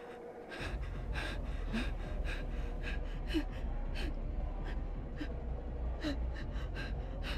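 A person gasping for breath in quick, shallow gasps, about two or three a second, with small whimpers between them: panicked breathing. A low steady hum comes in underneath about half a second in.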